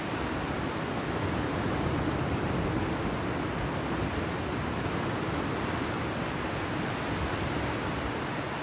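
Steady rush of sea surf breaking on a beach, swelling a little a couple of seconds in.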